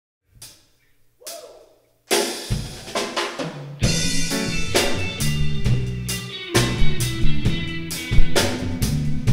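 A live reggae band starting a song: after two faint taps, the drum kit comes in about two seconds in, and electric guitar and bass join with the full band about four seconds in, playing a steady beat.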